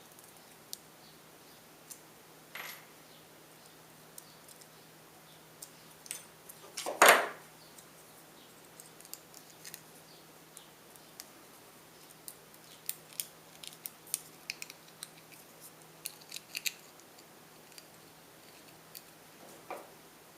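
Small metallic clicks and taps from thin tin-can sheet metal and a nail being handled and worked with hand tools, with one louder metal noise about seven seconds in and a run of quick clicks later on.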